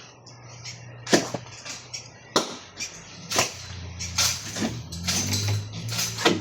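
A series of sharp knocks at irregular intervals, roughly a second apart, over a low steady hum.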